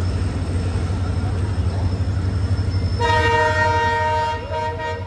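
A train horn sounds about three seconds in: several tones at once, held for under two seconds, over a steady low rumble of trains at the platform.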